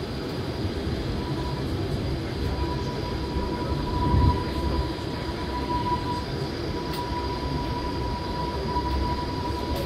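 Gornergratbahn electric rack railway car running along the track, heard from inside the carriage at an open window: a steady rumble, a thin high whine that comes in about a second in, and a louder knock about four seconds in.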